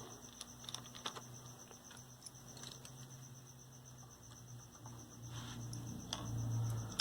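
Faint clicks and small knocks of hand tools working a transistor radio's circuit board loose, over a steady high-pitched whine and a low hum that swells near the end.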